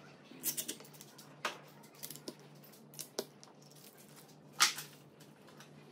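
A string of light clicks and knocks as small metal tools and hinge hardware are handled on a wooden cabinet door, the loudest knock about four and a half seconds in.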